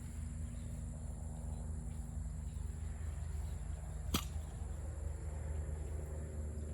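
A steady low hum, with a single sharp click about four seconds in.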